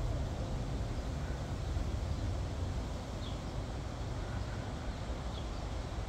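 Steady low outdoor rumble of background noise, with a few faint, short, high bird chirps about three and five and a half seconds in.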